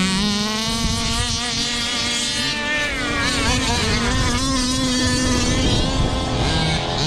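Radio-controlled basher cars' motors running, their pitch swinging up and down with the throttle over a steadier drone.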